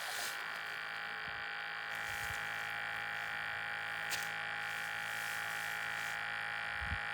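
A steady buzzing hum, with a few faint low knocks.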